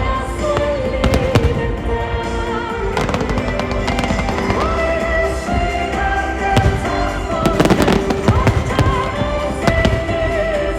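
Fireworks display bursting, with sharp bangs every second or two over a loud music soundtrack with long held notes.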